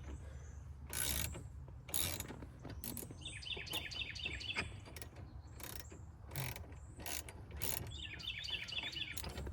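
Ratchet wrench turning the centre bolt of a steering wheel puller to force the steering wheel off its column, with a series of sharp clicks and knocks spaced about a second apart.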